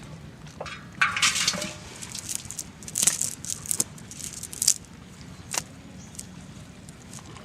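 Freshly caught fish flapping and splashing, a rough splash about a second in followed by a handful of separate sharp wet slaps.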